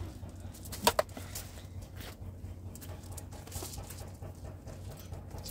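A short animal call, two quick cries together just under a second in, over a steady low hum.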